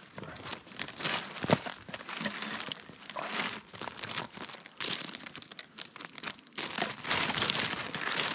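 Thin plastic carrier bag crinkling and rustling as litter is put into it, loudest near the end.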